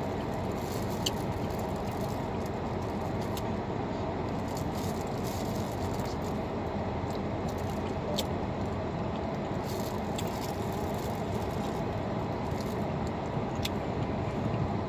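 Steady background noise inside a car cabin, with a few faint sharp clicks as corn on the cob is bitten and chewed.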